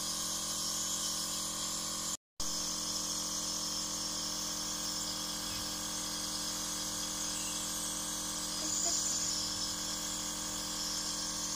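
Compressor nebulizer running steadily: a motor hum under a constant hiss of air through the nebulizer cup and mask. The sound cuts out for a moment about two seconds in.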